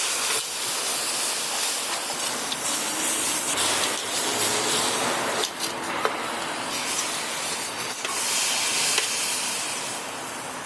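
Barbecue cooking: a steady sizzling hiss with scattered small crackles.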